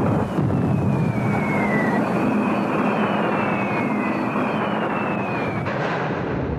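War-film sound effect: steady aircraft engine drone with a series of falling-bomb whistles, each sliding down in pitch, about four in overlapping succession.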